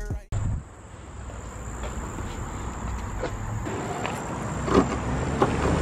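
Outdoor ambience with a steady high insect drone, with a few short clicks near the end as a hand holding a jingling key ring pulls a Chevrolet Camaro's door handle.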